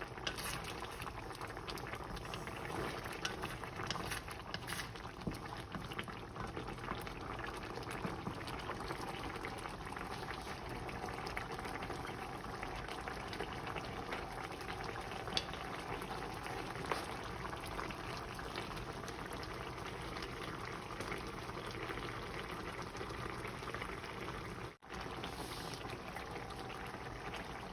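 Chicken yellow curry in coconut-milk sauce simmering in a pan, a steady bubbling with fine popping. The sound drops out for an instant near the end.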